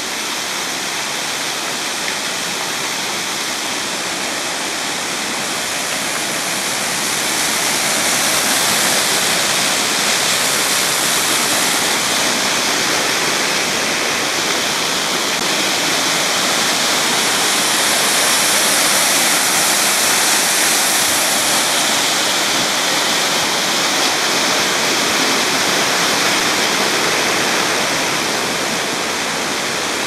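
Waterfall and mountain stream water running: a steady rush of falling and flowing water that grows a little louder about seven seconds in and eases again near the end.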